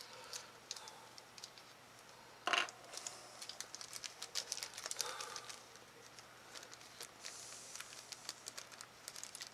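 Light clicks and taps of small screws and plastic drone parts being handled, with one louder knock about two and a half seconds in.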